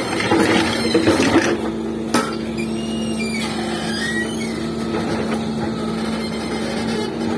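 Doosan excavator's diesel engine running at a steady hum, with rougher noise in the first second or so and a sharp knock about two seconds in.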